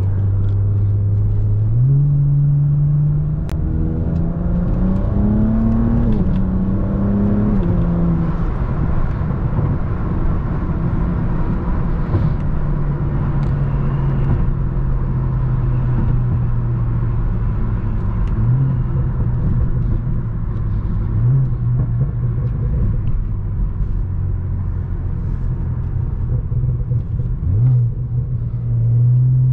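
BMW 335i's turbocharged inline-six engine running under way. Its pitch climbs twice in the first several seconds as it speeds up, drops back, then holds steady at cruise with a few brief dips.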